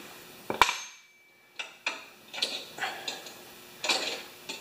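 Steel hand tools clinking and clanking against a lawn mower's metal rear axle parts. A sharp, ringing metallic clank comes about half a second in, followed by several lighter, irregular clinks and rattles.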